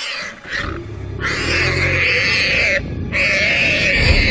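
Warthog squealing while held by lions: two long, harsh squeals, the second starting about three seconds in, over a low rumble.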